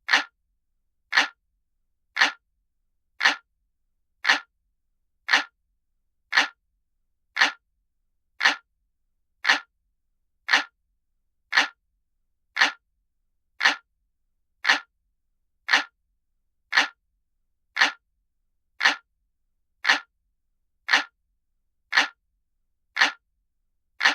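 Looped clock-ticking sound effect, like a traditional analog clock: short single ticks about once a second, evenly spaced, with nothing between them.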